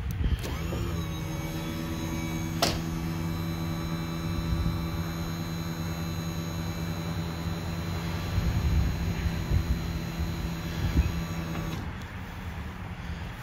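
Electric engine-hatch lift motor on a Cigarette 39 Top Gun Unlimited powerboat running as the hatch is raised: a steady motor hum that spins up with a short rising whine about half a second in and stops abruptly near the end, with one sharp click about two and a half seconds in.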